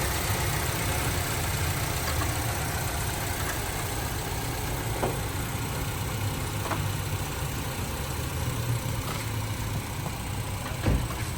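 Honda Civic engine idling steadily, with a few faint clicks.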